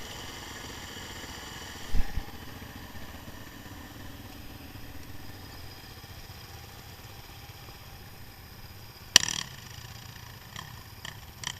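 Quad bike engines idling steadily, with a thump about two seconds in and a sharp knock about nine seconds in.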